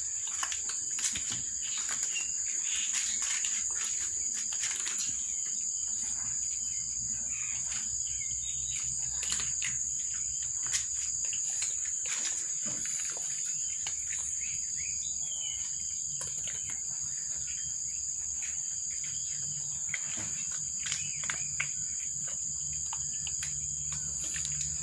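Cats and kittens crunching dry kibble off a tiled floor, heard as many short irregular clicks. Under them runs a steady high-pitched insect drone, with an occasional bird chirp.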